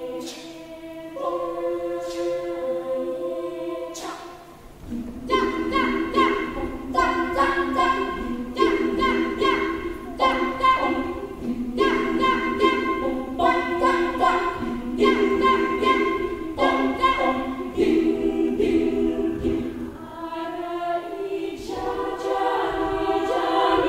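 Indonesian a cappella choir singing with no instruments: held chords for the first few seconds, then from about five seconds in a driving rhythm of short, repeated sung chords that stand in for instrumental accompaniment, with sharp hand claps on the beat.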